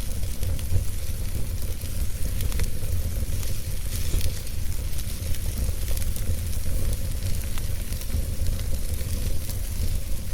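Wood fire burning with a steady hiss and many small crackles and pops, over a low rumble.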